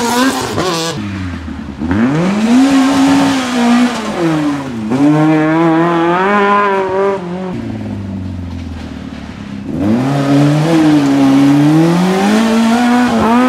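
Fiat Seicento rally cars' small four-cylinder engines revving hard one after another through a hairpin turnaround. The pitch climbs under acceleration and drops at each gear change or lift. One car pulls away at the start, the next about two seconds in and another about ten seconds in, with a lower lull between them.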